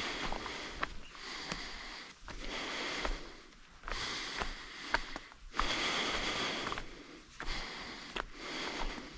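A hiker breathing hard, in loud breaths about every second and a half, with scattered footstep clicks on the trail.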